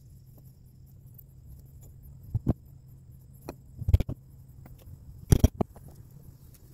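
A handful of sharp clicks and knocks, in a pair and then two short clusters, the last the loudest, over a faint steady low hum.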